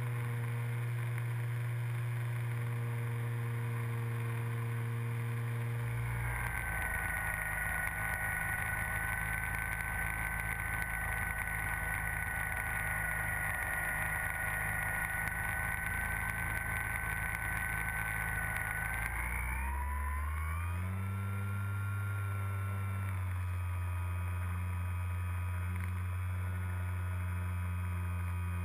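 Motor and propeller of a Multiplex Mentor RC airplane, heard from the onboard camera: a steady drone with a high whine. The pitch shifts about six seconds in and glides upward around twenty seconds in as the motor speed changes.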